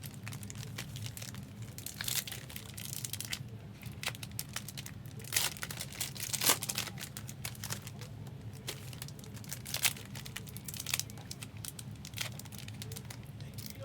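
Foil trading card pack wrappers crinkling and tearing open, with irregular sharp crackles of the wrapper being handled.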